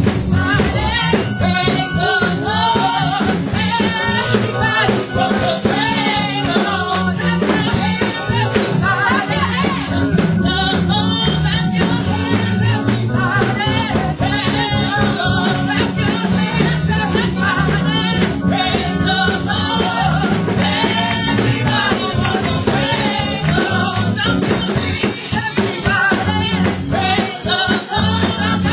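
Church praise team of women singing a gospel song together into microphones, over continuous instrumental accompaniment with a steady bass line, amplified through the sanctuary PA.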